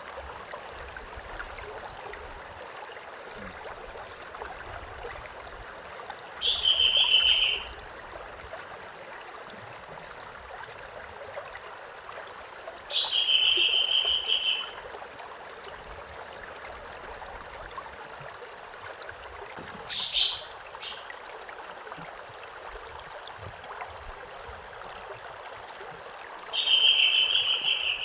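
A stream trickling and gurgling steadily, with a songbird repeating a short high song phrase about once every six or seven seconds, three times, and giving two brief sharp notes about twenty seconds in.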